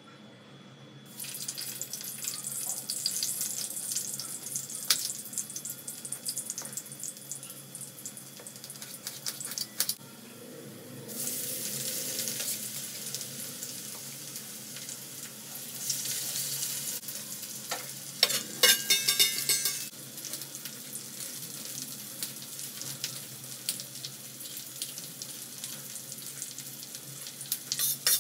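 Potato pieces sizzling in hot oil in a karahi. The sizzle starts about a second in and swells again around eleven and sixteen seconds in, and a spatula clicks and scrapes in the pan around eighteen to twenty seconds in.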